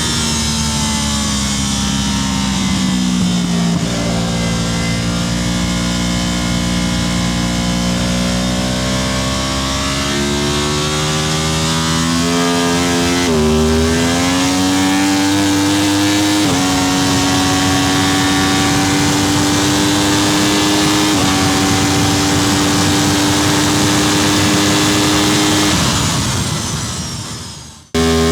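Superbike racing motorcycle engine running hard under load, heard onboard. Its pitch sags and then climbs slowly, drops sharply and recovers about halfway through, and steps to new steady pitches twice more, like gear changes, before fading away near the end.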